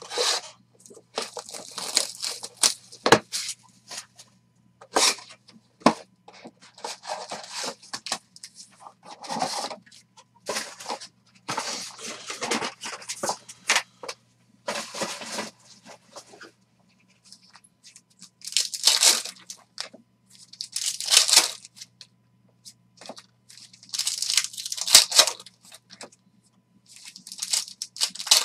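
Foil trading-card packs being torn open and their wrappers crinkled, in a series of separate rips each a second or two long, with a few sharp knocks of handling in the first few seconds.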